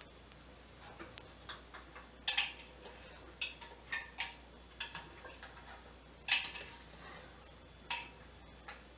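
Metal tools and parts being handled while a washing machine is taken apart for repair: about a dozen sharp clicks and clinks at uneven intervals, some with a brief ring.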